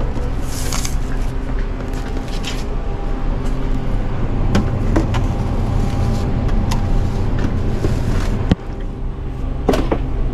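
Steady low mechanical hum of restaurant kitchen machinery, with occasional clicks and knocks and brief rustles as metal hotel pans wrapped in plastic film are handled and slid onto fridge racks.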